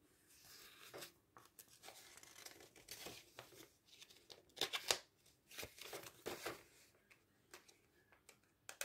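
Faint rustling and brushing of glossy catalogue pages under a hand, with a few louder crinkles around the middle.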